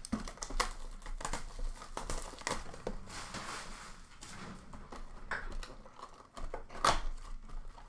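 Cardboard blaster box of Upper Deck hockey cards being handled and torn open: rustling and crinkling with a string of sharp clicks and scrapes, a longer tearing stretch in the middle and the sharpest crack near the end.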